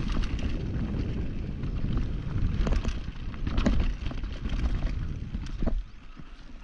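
A mountain bike ridden down a dirt trail: wind rumbling on the rider's camera microphone over the tyres and rattling bike, with a few sharp knocks from bumps. The rumble eases near the end.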